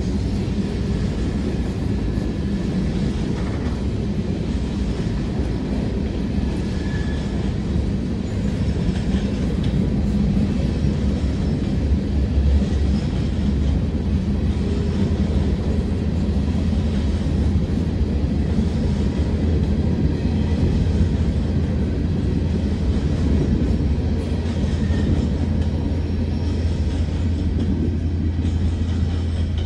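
Empty coal hopper cars of a freight train rolling past: a steady low rumble of wheels on rail with some clatter.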